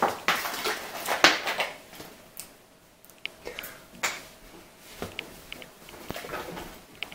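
A large plastic soda bottle is grabbed and handled, with sharp knocks and rustles in the first two seconds, then drunk from straight out of the bottle: quieter gulping with scattered small clicks of the plastic.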